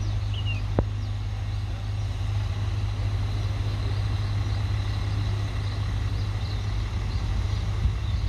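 Diesel engine of a track recording railcar running with a steady low hum as the car moves slowly along the track. One sharp click sounds about a second in.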